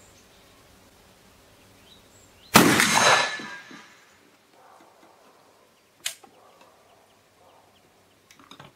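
A Pedersoli Whitworth .451 muzzle-loading rifle fired once, a loud boom about two and a half seconds in that fades out over about a second. A single short, sharp crack follows about six seconds in.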